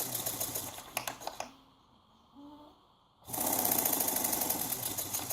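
Volkswagen Golf Mk4 fuel pump motor running on a bench power supply at low voltage, with a fast, even rhythmic chatter; it stops about a second and a half in and starts again about two seconds later. The owner takes the noise for a bad bearing in the pump motor.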